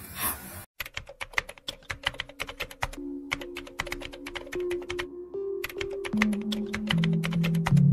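Background music with held low notes that change pitch every second or two, overlaid by rapid, irregular clicking like keyboard typing, which breaks off briefly near the middle.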